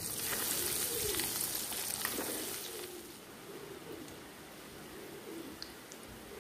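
Cheese balls deep-frying in hot oil, a loud sizzling hiss that drops much lower about three seconds in, while pigeons coo steadily.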